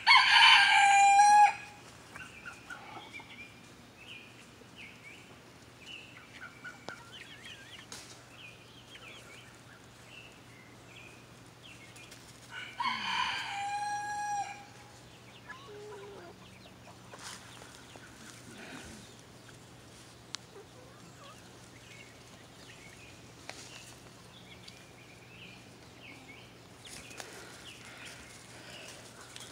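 A rooster crowing twice, once at the start and again about thirteen seconds later, each crow about a second and a half long, with faint high chirping in between.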